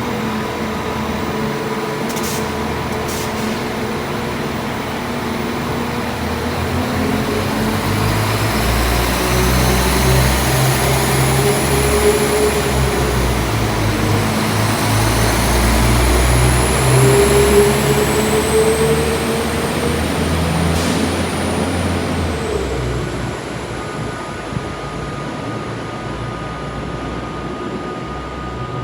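A train at the station platform, its heavy low engine rumble swelling through the middle. A thin whine climbs steadily in pitch, as a train does when it pulls away and picks up speed. Near the end the whine drops and the sound eases off.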